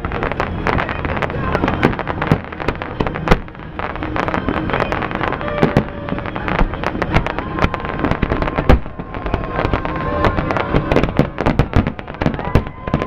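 Aerial fireworks shells bursting in rapid, overlapping succession: many sharp bangs and crackles, with no gap between volleys.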